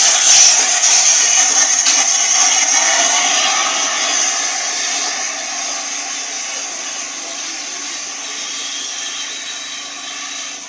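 LNER A4 Pacific steam locomotive 60007 Sir Nigel Gresley and its train passing close by: a loud, steady rushing hiss that fades as the train moves away.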